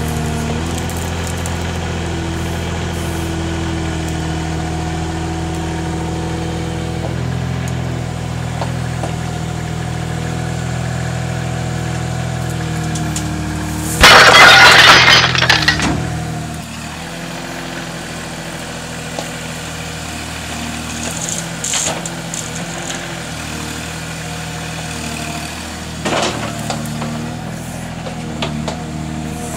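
Mini digger running steadily, its engine and hydraulic note stepping in pitch now and then. About halfway through comes a very loud crash lasting about two seconds, after which the machine runs on more quietly with a few light knocks.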